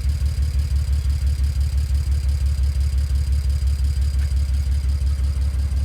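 BMW N54 twin-turbo inline-six idling roughly with an uneven, pulsing beat: a misfire caused by a faulty ignition coil.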